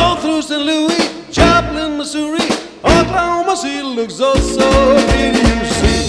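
Upbeat swing-style background music with a drum kit and a lead melody line.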